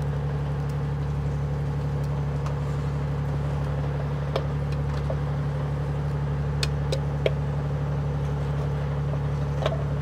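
Fishing boat's engine running steadily with a low hum, and a few short sharp clicks and taps over it, typical of a knife working on a cutting board as small fish are cleaned.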